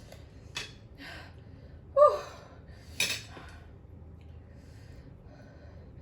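Cutlery clinking against dishes at a meal, with sharp clinks about half a second in and again about three seconds in, and a short vocal exclamation about two seconds in.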